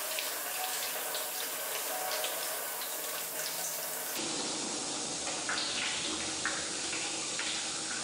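Water running steadily from a spout and splashing over a hand; the sound turns a little fuller about four seconds in.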